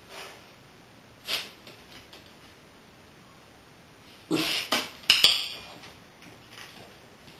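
A small dog gives two short barks, followed at once by the sharp double click of a training clicker. A single sharp click sounds about a second in.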